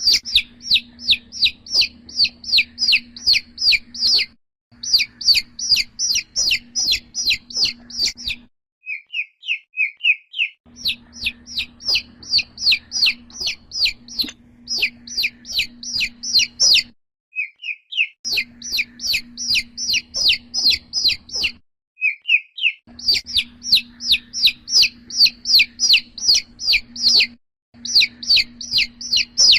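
Domestic chicken chick peeping: rapid, high, falling peeps about three a second, in bouts broken by short silences, with a few softer, lower peeps in between. A steady low hum runs under the bouts.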